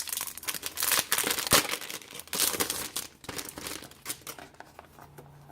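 Wrapping being crinkled and torn as a notebook is unwrapped by hand, in irregular bursts of crackling that thin out near the end.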